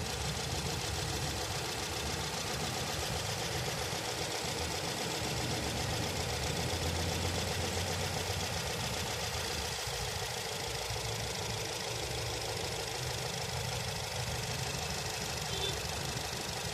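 Nissan Tiida's four-cylinder engine idling steadily with a misfire while cylinder 3's injector is cut in a power-balance test. Cutting it makes no difference to the idle, the sign that cylinder 3 is the dead cylinder; its spark plug turns out to be shorted and fouled with oil.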